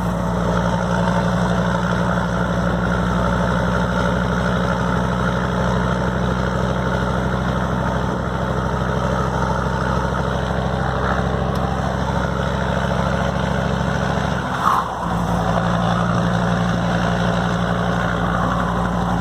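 Mercedes-Benz truck's diesel engine idling steadily. About three-quarters through, the engine note briefly dips and there is one short louder sound before the steady idle resumes.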